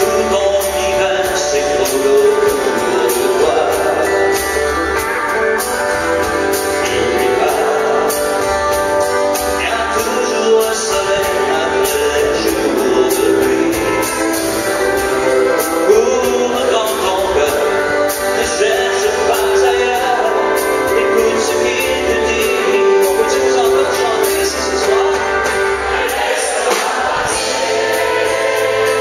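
Live country band: a man singing over strummed acoustic guitar, pedal steel guitar and drums keeping a steady beat.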